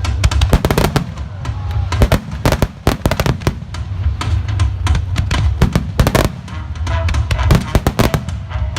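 Aerial fireworks bursting in a rapid, irregular string of sharp bangs and cracks, over music with a steady heavy bass.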